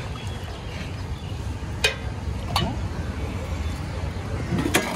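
Steady low rumble of street traffic, with three sharp clicks: about two seconds in, again half a second later, and once more near the end.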